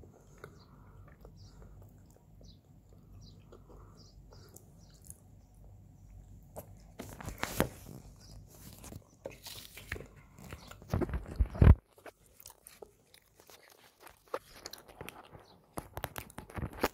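Close-up mouth sounds of chewing a chocolate-glazed doughnut: faint soft chewing and small wet clicks. About seven seconds in, loud irregular rubbing and bumps of a hand handling the phone against its microphone take over, with scattered clicks after.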